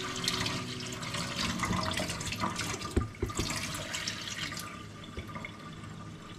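Water pouring and splashing into a stainless steel sink as a plastic tub of fish-scaling water is tipped out and its corner wiped by hand, with a couple of knocks about three seconds in.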